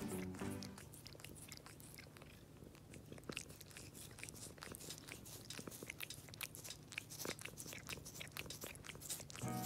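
A grey domestic cat licking a person's hand close to the microphone: a soft, irregular run of small wet clicks and rasps from its tongue, several a second.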